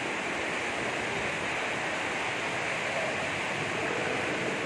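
Steady, even rush of water, with no breaks or impacts.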